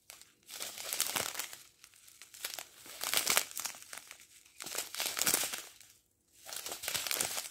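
Small clear plastic bags of square diamond-painting drills crinkling as fingers press and push the drills around inside. The crinkling comes in several bouts with short pauses, and stops briefly about six seconds in.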